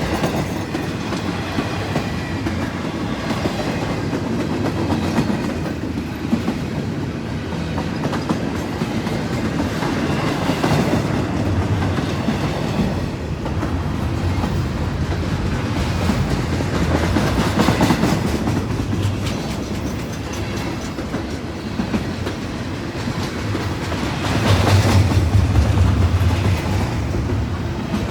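Double-stack intermodal freight cars rolling past, wheels clicking over rail joints in a steady clickety-clack over a continuous rumble, swelling louder a few times.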